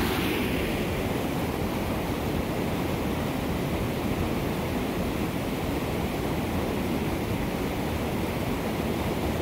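Water rushing over a low concrete dam spillway on a river: a steady, even rushing noise.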